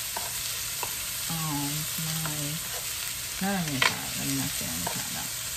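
Shredded mushrooms and sliced onions sizzling in a nonstick frying pan while a plastic spatula stirs them, scraping and clicking against the pan, with one sharp knock a little before four seconds in.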